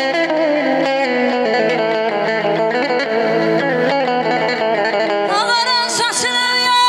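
Live band music led by an electric guitar playing a quick, ornamented Middle Eastern-style melody over steady sustained backing notes. Near the end a rising, sliding high note comes in.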